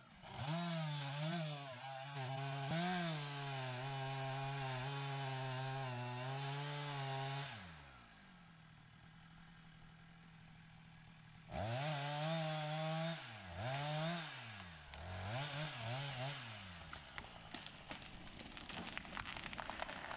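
Chainsaw held at high revs cutting wood for about seven seconds, then dropping to a quiet idle for a few seconds. It then revs up again in several quick bursts before a rougher stretch of cutting.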